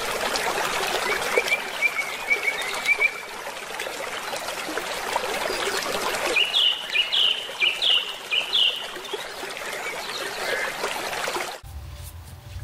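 Water running steadily with a trickling rush, while a small bird chirps a short twittering phrase about a second in and then gives a run of about five sharp calls in the middle. Near the end the water sound cuts off abruptly, leaving a low rumble.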